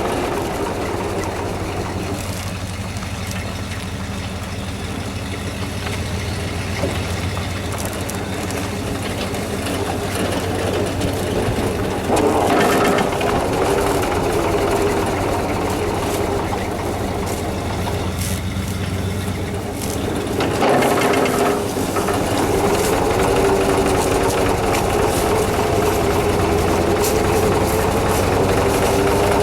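A vehicle engine running steadily, with louder surges about twelve and twenty seconds in.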